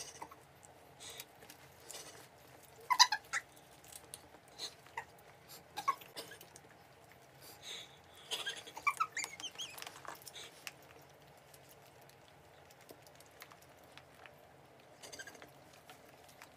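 Baby monkeys giving short, high squeaks and chirps: a quick cluster about three seconds in and a longer run of wavering squeals around eight to ten seconds in, with soft scuffling clicks in between.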